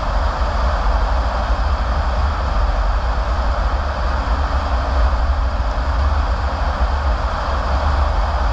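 Steady road noise of a car driving: tyres hissing on a wet road over a low, constant rumble.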